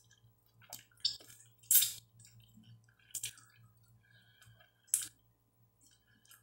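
Wet mouth smacks and sucking from eating roast chicken by hand, pulling meat off the bone and sucking the fingers: about five short, sharp smacks spaced out, the loudest near two seconds and five seconds in.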